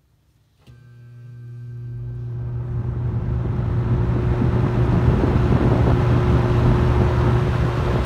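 Superlectric 2083 box fan with a metal motor switched on with a click, its motor humming while the blades spin up: the rush of air builds for about four seconds, then runs steady and loud.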